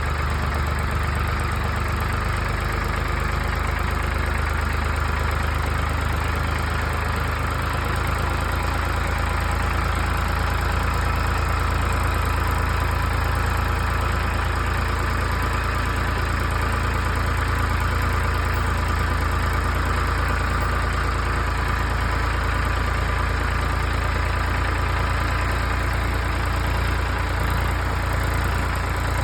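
Skid steer engine running steadily at a low, even speed, with no rises or drops in revs.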